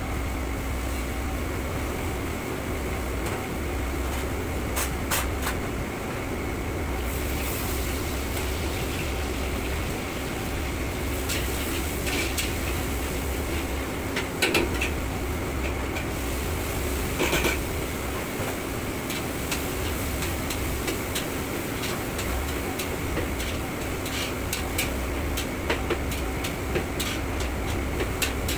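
Steady rushing noise of a gas wok burner and kitchen exhaust fan, with a low hum. A metal ladle clinks and scrapes in a wok now and then, a few sharper knocks standing out in the middle and a quick run of them near the end.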